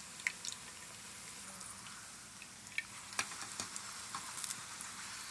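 Tortilla frying in shallow hot oil in a skillet for a taco shell: a steady sizzle with scattered sharp pops, more of them in the second half.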